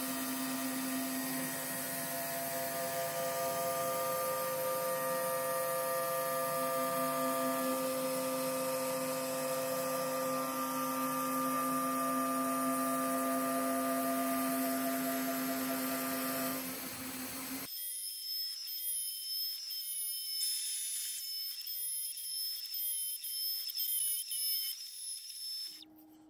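CNC router spindle running at a steady pitch while a 1/8 inch end mill cuts through a PVC sheet. About 17 seconds in, the lower hum cuts off abruptly, leaving only a thin, wavering high whine.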